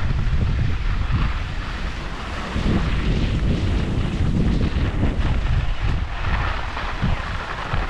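Wind buffeting a GoPro's microphone while skiing downhill, a steady low rumble, with the hiss of skis sliding over groomed snow.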